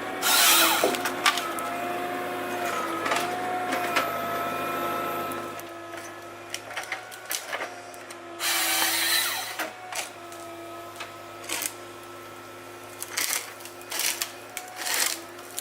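Forestry harvester working wood, its engine and hydraulics giving a steady whine that wavers slightly in pitch. Two bursts of harsh noise, at the start and about halfway through, with scattered clicks and knocks.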